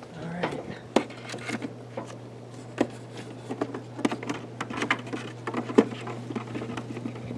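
Wooden beehive frames knocking and scraping against each other and the hive box as they are fitted back into the hive body: a run of irregular sharp taps and clicks, the loudest just before six seconds in.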